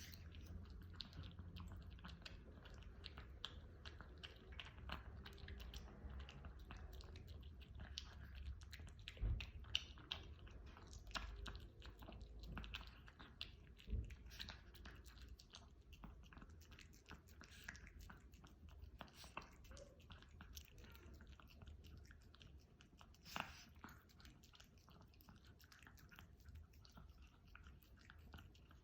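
A Chihuahua chewing and crunching food: a quick, continuous run of small crunches and clicks, with a few louder ones.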